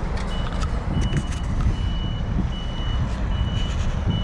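A truck's reversing alarm beeping steadily, just over one beep a second, each beep a single high tone, over the low rumble of the truck's engine.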